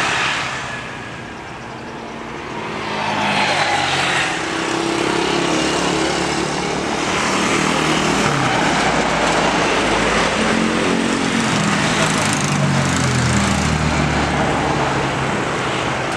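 Boeing 737-8 jet engines landing and rolling out on the runway. The noise dips briefly about a second in, then swells from about three seconds in and holds loud as the jet slows, typical of reverse thrust on the landing roll.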